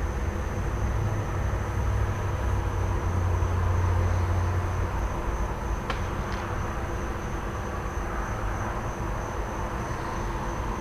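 Low steady rumble of an idling truck engine and traffic, swelling for a couple of seconds a few seconds in, under a constant high cricket chorus. Two faint sharp snaps come close together about six seconds in.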